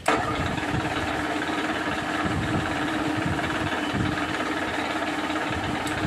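Milling machine spindle running while drilling a hole in the workpiece: a steady mechanical hum with a constant pitch that starts abruptly.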